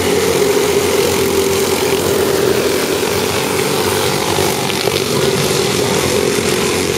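Several racing go-karts' small engines running together in a loud, steady drone as the pack laps the track.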